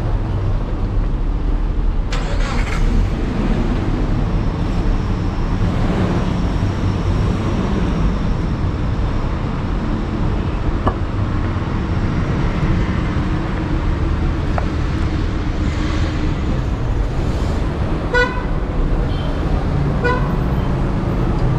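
Street traffic: cars running past in a steady rumble, with a car horn tooting twice near the end.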